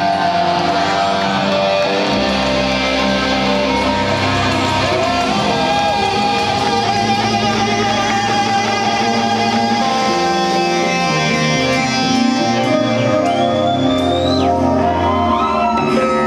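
Live psychedelic rock band playing loudly: electric guitars and bass over drums, with dense sustained chords. About two-thirds of the way through, a high tone comes in that slides up and down.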